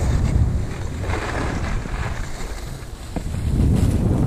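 Wind buffeting the microphone of a camera moving downhill on skis, with the hiss of skis sliding over snow. The rumble eases about three seconds in, then grows again.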